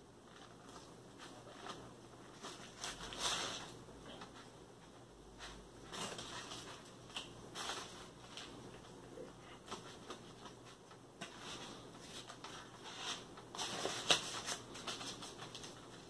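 Plastic knife sawing through a fried chicken tender sandwich in several short bouts, the crisp breading crackling, with rustling of the paper and foil wrapper under the plate.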